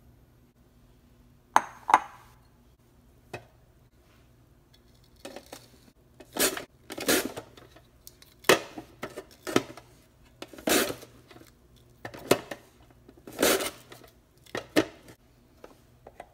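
Raw potato slid over the julienne blade of a plastic mandoline slicer, cutting it into fry strips: about eight short scraping strokes, roughly one a second, starting about five seconds in. Two sharp clicks come near the start.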